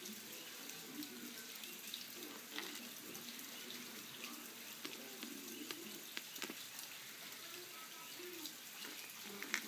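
Faint, scattered clicks and taps of a keyboard's plastic case parts and small screws being handled and fitted back together, over a steady hiss.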